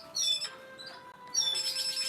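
Sharp GX17 mobile phone playing a melodic ringtone: bursts of high, chirping notes that slide downward, near the start and again about a second and a half in, over steady held lower notes.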